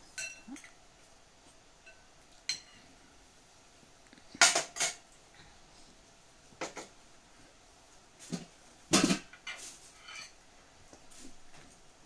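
Spoons clinking and knocking against soup bowls during a meal, in scattered separate strikes, a few of them briefly ringing. The loudest clinks come about four and a half seconds in and again about nine seconds in.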